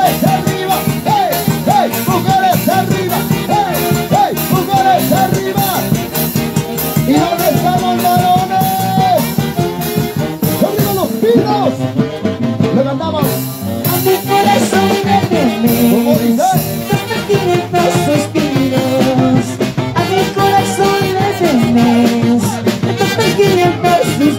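Live Peruvian huayno orquesta playing a dance tune, with a melody over a steady beat.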